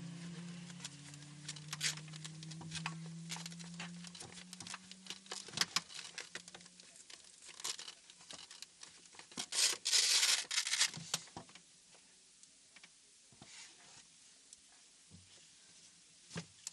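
Rustling, clicking and scraping as things are handled inside a stopped race car's cockpit, with a dense rasping burst lasting about a second and a half around ten seconds in. A low hum fades away over the first several seconds, and after that only a few faint ticks remain.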